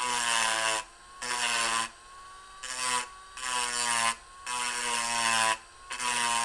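Handheld rotary tool with a small grinding bit running against a trombone's silver-soldered socket and flange joint, a high whine in about six short runs of roughly a second each with brief pauses between them. The tool is grinding away excess silver-solder build-up to rough-shape the joint.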